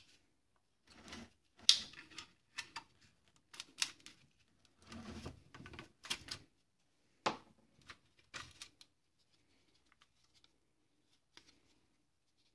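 Screwdriver prying up the clips of a Bosch alternator's voltage regulator: irregular clicks and short scrapes, stopping about nine seconds in apart from one last small tick.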